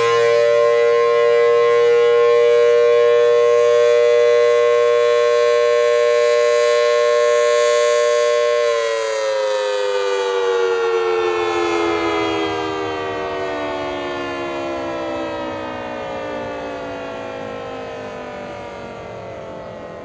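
Federal Signal Thunderbolt 1000T rotating horn siren, 4/5 port, sounding a loud, steady two-note chord. About nine seconds in it begins winding down, the chord falling slowly in pitch and fading.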